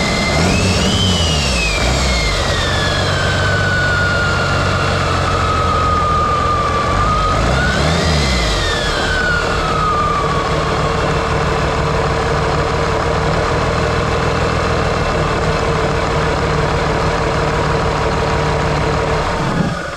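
New Cummins 6BT 5.9 L inline-six turbo diesel running on a test run, revved twice by hand at the throttle lever, about a second in and about eight seconds in. Each rev brings a high whine that rises and then slowly falls away. It then runs steadily and shuts off right at the end.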